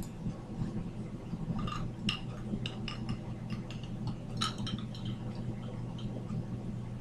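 A steady low hum, with an irregular scatter of light clicks and clinks from about one and a half to five seconds in.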